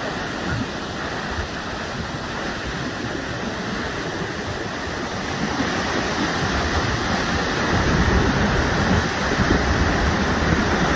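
Muddy floodwater from a dam's spillway rushing in a broad, shallow sheet over open ground, a steady churning rush that grows a little louder from about six seconds in.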